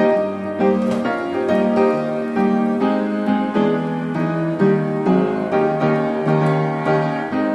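Background instrumental music: a flowing piano melody, its notes changing every half second or so.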